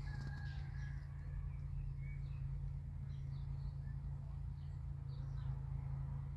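Faint scattered bird chirps over a steady low hum of outdoor background noise.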